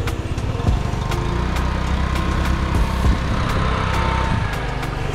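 Small scooter engine running steadily, with a faint higher whine for about a second in the middle.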